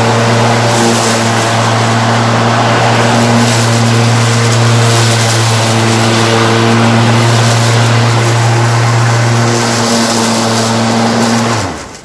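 Greenworks 20-inch 12-amp corded electric lawn mower running at full speed while being pushed across the lawn, a steady motor hum under the rush of the spinning blade. The sound cuts off abruptly shortly before the end.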